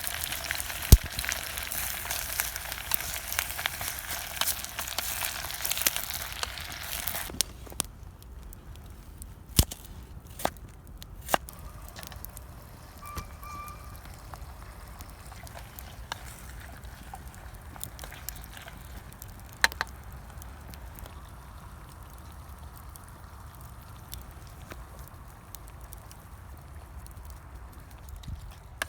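Food frying in a pot over an open wood fire, a dense sizzle that cuts off suddenly about seven seconds in. After that a campfire crackles quietly with occasional sharp pops.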